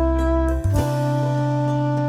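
Background music: held chords over a steady deep bass, changing chord about half a second in.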